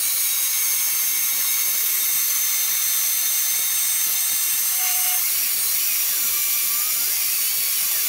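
Vertical bandsaw running, its blade cutting through a bar of stainless Damascus steel with a steady high-pitched hiss and whine.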